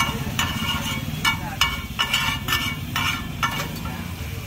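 Flat metal spatula knocking and scraping on a large griddle (tawa) as pav bhaji is mashed and stirred, in quick repeated strokes about two to three a second, over a low steady rumble.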